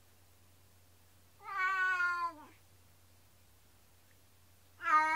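Black domestic cat meowing twice, long drawn-out mournful cries about a second each, the pitch rising slightly and then dropping at the end; the second cry begins near the end. The calls of a cat left home alone.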